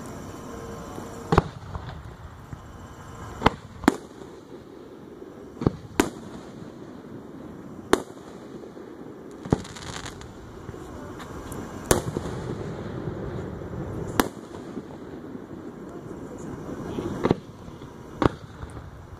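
Aerial firework shells bursting: about a dozen sharp bangs at irregular intervals, one every one to three seconds, over a steady background noise.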